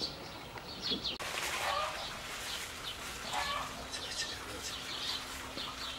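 Birds chirping, short high calls repeating over and over, with a couple of lower, longer calls among them.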